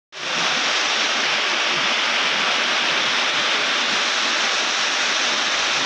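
A loud, steady rushing hiss like running water, starting abruptly just after the opening and holding an even level throughout.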